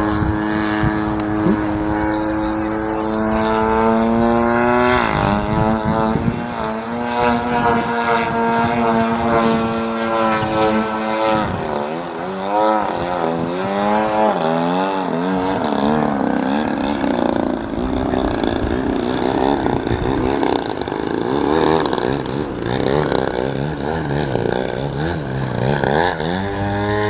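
Extreme Flight Slick 580 3D aerobatic RC plane flying. Its motor and propeller note holds steady at first, drops about five seconds in, wavers up and down through the middle, and climbs again near the end as the throttle is worked.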